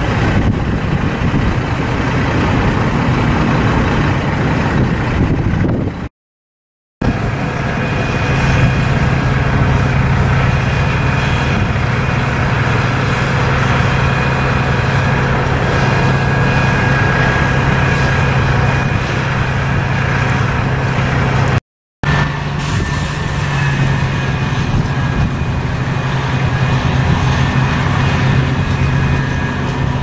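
Heavy diesel truck engines running steadily with a low hum, the sound of semi and tow trucks at work in snow. The sound is noisier for the first few seconds and cuts out briefly twice, once for about a second.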